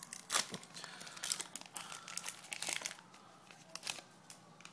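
Baseball card pack wrapper crinkling and tearing as it is opened and handled. A dense run of rapid crackles fills the first three seconds, then a short burst comes near the end.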